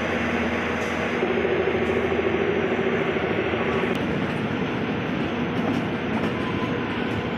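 Kalka–Shimla narrow-gauge toy train running, heard from an open coach doorway: a steady rumble of wheels on the rails with a humming tone, stronger between about one and four seconds in, and a few faint clicks.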